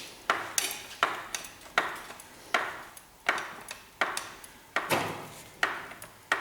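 Hydraulic jack being pumped under a car chassis: regular metallic clanks with a short ring after each, about one every three-quarters of a second, as the chassis is jacked back up.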